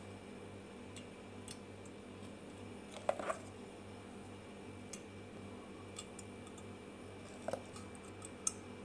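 A spoon clicking and tapping against jars as ginger-garlic paste is spooned into a glass jar. The clicks are faint and scattered, with the loudest, a short clatter, about three seconds in. A steady low hum runs underneath.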